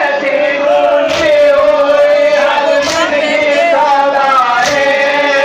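A crowd of men chanting a Muharram mourning lament (noha) together, holding long notes. Three sharp hits come about two seconds apart, in time with the chant.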